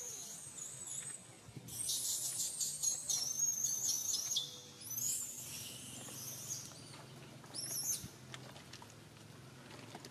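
Newborn long-tailed macaque squealing in distress, high wavering squeals in several bouts, the last a short one about eight seconds in.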